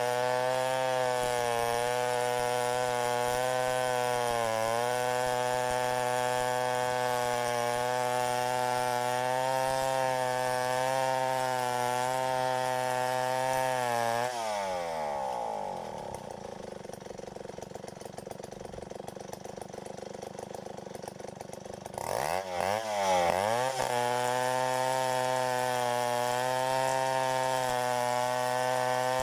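Stihl 070 two-stroke chainsaw running at high revs, steady as it cuts through a duhat log. About halfway the throttle is released and the engine falls to idle for several seconds. It is then revved back up to full speed.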